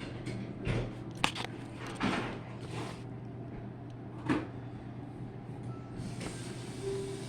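Handling noises: a sharp click about a second in, then several brief rustling knocks, over a steady low hum.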